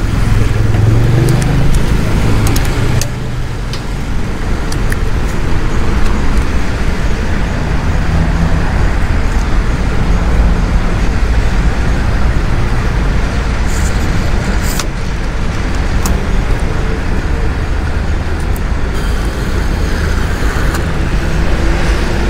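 Steady road traffic noise, heaviest in the low end, with a few sharp clicks about two-thirds of the way through.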